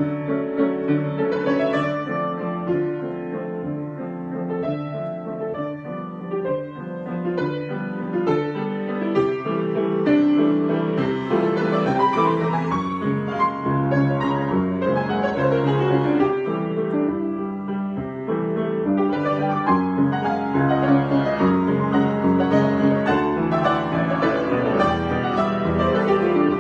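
Solo piano improvisation: a continuous flow of sustained chords and melody notes, growing somewhat fuller and louder about ten seconds in.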